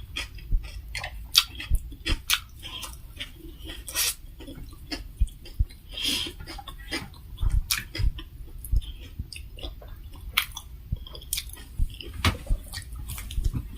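Close-miked eating: chewing with wet mouth clicks and occasional crunchy bites, irregular throughout, with a few light clinks of dishes.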